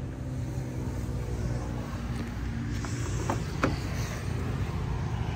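A steady low rumble with two sharp clicks just over three seconds in, as a Toyota Corolla's rear car door latch releases and the door swings open.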